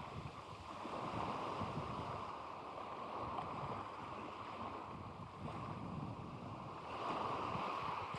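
Sea waves washing onto the beach, with wind gusting against the microphone.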